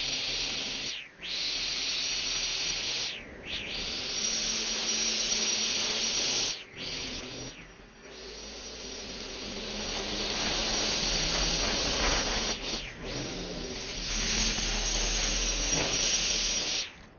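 String trimmer running, its spinning line whirring as it cuts overgrown grass. The whir drops away briefly about five times and cuts off just before the end.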